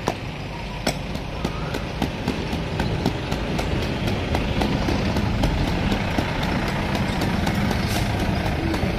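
A wooden float on a pole tapping and working the surface of freshly poured wet concrete, a quick run of sharp taps about three a second. Under it a steady low engine hum runs throughout.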